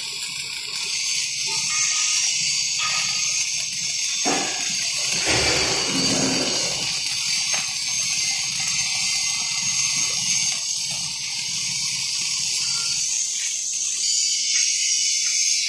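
Automatic TIG welding arc hissing steadily as the machine-driven torch lays a bead along a steel plate. A low hum runs underneath and stops near the end, and a few brief knocks come about four to six seconds in.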